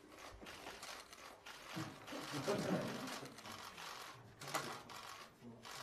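Quiet room with faint murmuring voices and several short, sharp clicks, the most distinct about four and a half seconds in and again near the end.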